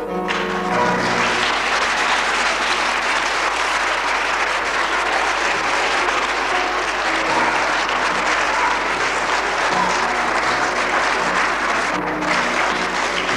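Audience applauding steadily, with music playing underneath; the clapping thins out about twelve seconds in.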